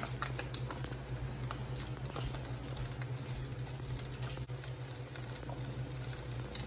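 Rice frying in a wok over a gas flame: a faint, steady crackle with scattered small ticks, over a steady low hum.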